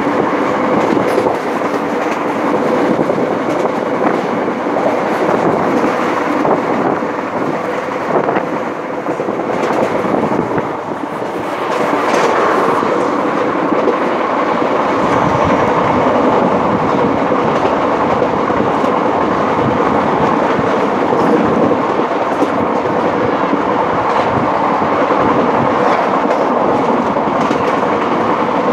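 Janta Express passenger coach running at speed, heard from its open doorway: a continuous rumble and rattle of wheels on the track. It eases slightly about ten seconds in, then runs a little louder from about twelve seconds on.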